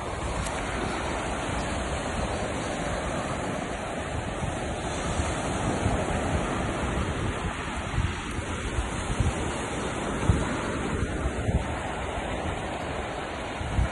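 Sea surf washing onto a sandy beach, a steady rushing noise, with wind buffeting the microphone in uneven low rumbles.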